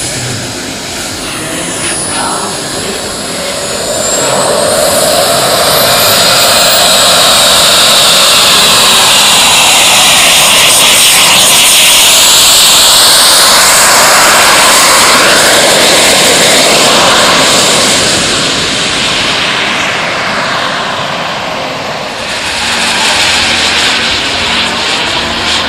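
Small model jet turbines of a radio-controlled MD-11 airliner at takeoff power, a loud rushing jet noise with a high turbine whine. It grows louder about four seconds in as the model rolls down the runway and lifts off, is loudest around the middle, then fades as it climbs away and swells once more near the end.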